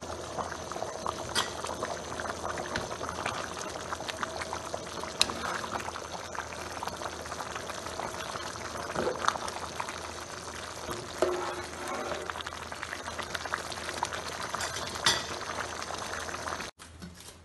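A pot of beef stock (yakhni) boiling with rice in it, making a steady bubbling and popping. The sound cuts off suddenly near the end.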